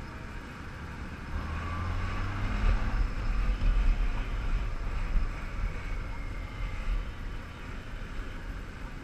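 Honda Gold Wing 1800's flat-six engine running as the motorcycle rides along, with a heavy low rumble that swells about a second in and eases off in the second half.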